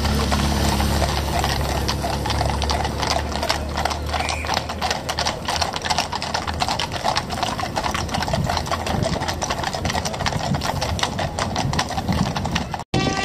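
Many horses' hooves clip-clopping in a dense, irregular rhythm on the paved road as a trotting horse and horse-drawn carriages pass, with a low hum in the first second. The sound breaks off for an instant near the end.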